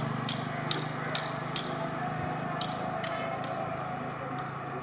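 Regular metallic clinking of a kitchen utensil striking cookware, about two strikes a second with a short pause partway through, over a steady low hum.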